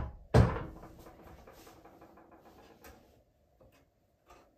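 Metal clunks from a small steel wood stove being handled: a sharp knock, then a louder clank with a short ringing tail, followed by light rattling and scraping of its parts and a few faint clicks.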